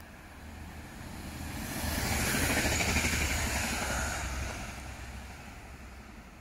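A vehicle passing by: a rush of noise that swells over about two seconds, peaks near the middle, then fades away.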